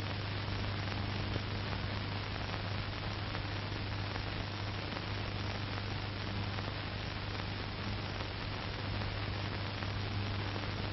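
Steady hiss with a constant low hum: recording background noise, with no other sound.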